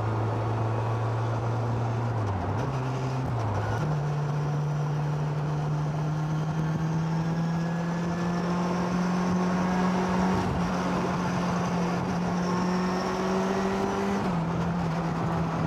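1966 Lotus Elan 26R's four-cylinder twin-cam engine running at highway speed, a steady drone with wind and road noise. Its pitch steps up about three seconds in, climbs slowly, and drops back a little near the end.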